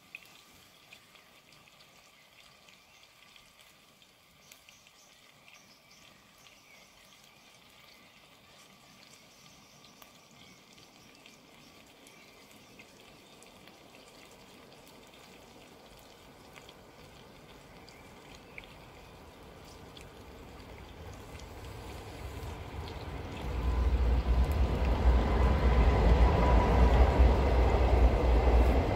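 A pot of curry simmering on a camping stove, heard as a faint hiss and trickle. About three-quarters of the way through, a loud low rumble of the camera being handled takes over and drowns it out.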